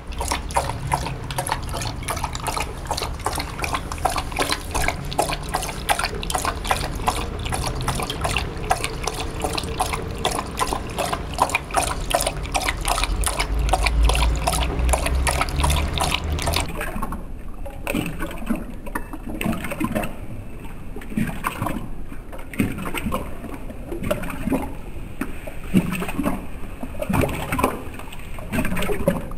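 German Shorthaired Pointer lapping water from a stainless steel bowl, with rapid, sharp splashy laps. About seventeen seconds in, the laps turn slower and duller as the footage slows to slow motion.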